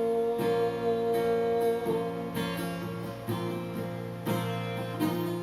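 Acoustic guitar strumming chords, with the chord changing every second or two.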